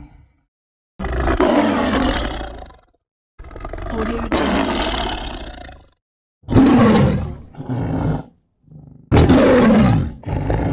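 Animated dinosaur roar sound effects: four long roars with short silences between them, the last two falling in pitch, and a brief faint call between the third and fourth.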